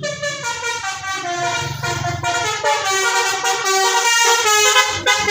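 Indonesian 'telolet' bus horn: a set of tuned air horns playing a fast melody of stepped notes, cutting in suddenly, with the bus's engine running underneath.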